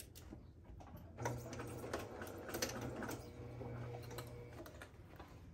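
Domestic electric sewing machine stitching a seam around a fabric basket: a steady run of the motor and needle that starts about a second in and stops near the end. Light clicks of fabric handling come before it.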